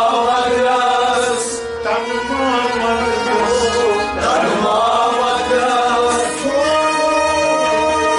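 A Kashmiri devotional song (kalam) sung by men in long, sliding held phrases over a harmonium, with plucked lutes such as the rabab.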